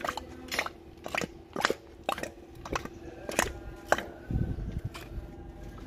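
A run of sharp clicking knocks, about two a second, over a faint steady hum.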